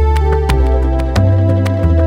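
Background music: a soft instrumental with held bass notes that change every half second or so and a light, regular beat.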